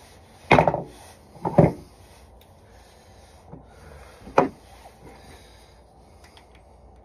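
Hand tools and metal parts knocking against a wooden workbench as they are set down and picked up: three sharp knocks, about half a second in, about a second and a half in, and about four and a half seconds in.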